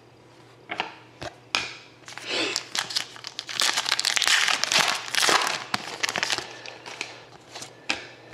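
Foil trading-card pack wrapper being torn open and crinkled by hand: a few sharp crackles, then a loud stretch of continuous crinkling in the middle, dying down to a few scattered crackles.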